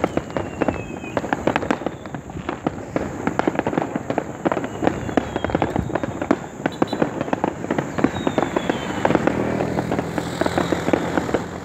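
Many fireworks going off in rapid succession: a dense, continuous crackle of sharp bangs and pops, with a few faint falling whistles.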